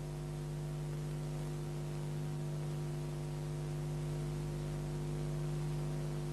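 Steady electrical mains hum, a low buzz with evenly spaced overtones, over a layer of hiss.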